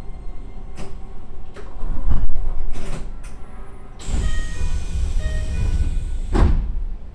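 Hokuso 7500-series electric train running at speed, heard from the driving cab: wheels knocking over rail joints every half second or so, then a louder stretch of rolling rumble with a faint whine for about two seconds that ends in a heavy knock.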